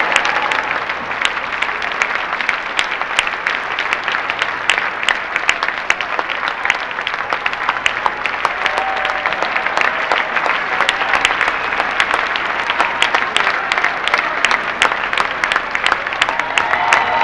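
Large theatre audience applauding: a dense, steady mass of clapping.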